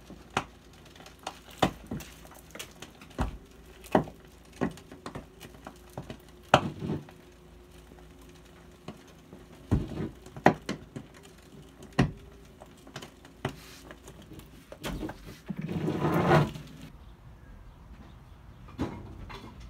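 Old cast iron sewer pipe crunching and cracking as it breaks apart while new pipe is slowly pulled through it: loud, irregular cracks, with a longer crunching stretch near the end.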